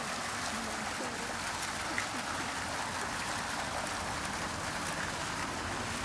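Small fountain jets spouting and splashing back into a shallow pool: a steady, even rush of falling water.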